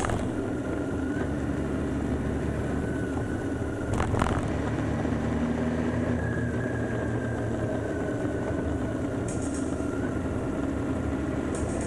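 BMW K1600 GTL's inline-six engine running under way, with road and wind noise, heard from a camera mounted on the bike. A single sharp knock about four seconds in.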